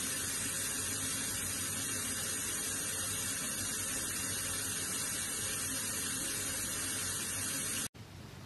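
Water running steadily from a bath tap into a tub. It stops suddenly near the end, leaving a fainter steady hiss.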